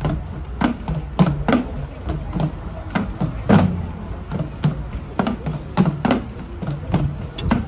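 Traditional Sri Lankan drums beaten in a fast, uneven rhythm of about two strokes a second, each stroke leaving a low ring, over the steady noise of a crowd.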